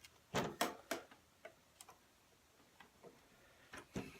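Metal glazing points being tapped and pushed into a wooden window sash with a putty knife: irregular sharp clicks and taps, several in the first second and a couple more near the end.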